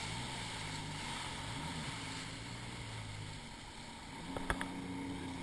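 Jet ski engine running under way, its pitch rising briefly about one and a half seconds in, with wind and water spray rushing past. A sharp knock about four and a half seconds in.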